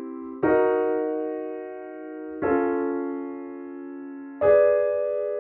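Piano playing block triads one after another, each struck once and left to ring for about two seconds: a C major chord dies away, then E flat minor, D flat augmented and G sharp diminished chords come in turn, about half a second, two and a half and four and a half seconds in. Together the four chords make a twelve-tone triad set covering all twelve chromatic pitch classes.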